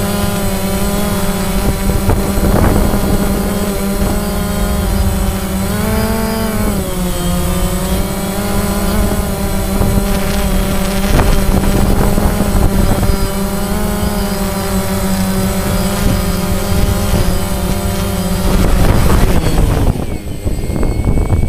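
Phantom quadcopter's electric motors and propellers running right at the on-board camera, a steady buzzing whine that rises in pitch briefly about six seconds in. Near the end the drone is down in the grass and the whine fades out.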